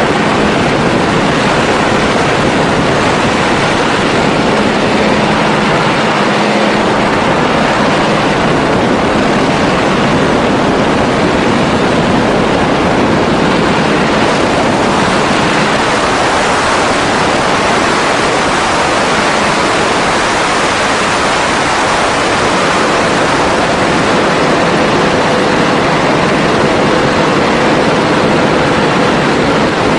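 Grumman G-164 Ag Cat floatplane's engine and propeller running, heard as a loud, steady rush of engine noise and wind with a faint hum underneath.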